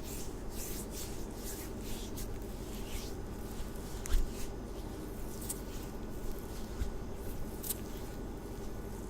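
Close-up soft swishing of hands working a small dab of hand butter, in short strokes, with one sharp knock about four seconds in.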